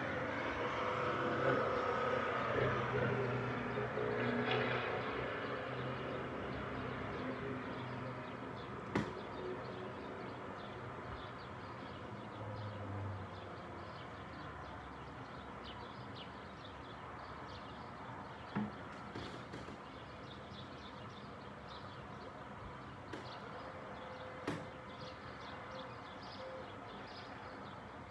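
Outdoor ambience: a distant engine hum with steady tones fades away over the first dozen or so seconds, leaving a faint background haze with scattered bird chirps and a few sharp clicks.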